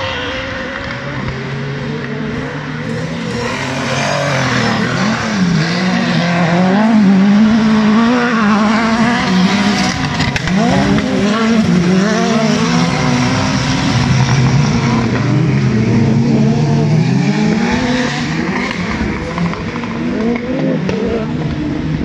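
Several 4-litre-class autocross cars racing on a dirt track, their engines revving up and down through the gears and overlapping. The engines are loudest through the middle as cars pass close by.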